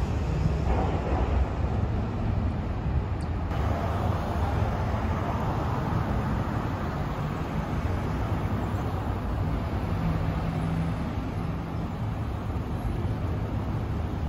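City street traffic: cars driving past, a steady rumble of engines and tyres.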